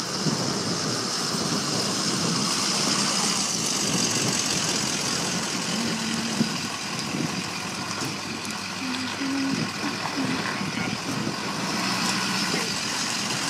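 Pickup truck engine idling.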